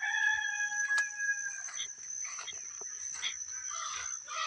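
A rooster crowing once, one long held call that tails off about a second and a half in, over a steady high-pitched drone.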